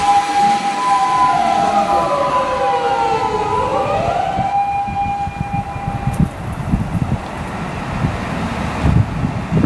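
Freight train passing at near top speed. Steady whining tones, one of them sweeping down and back up, fade about six seconds in to the rumble of the wagons, with knocks from the rails.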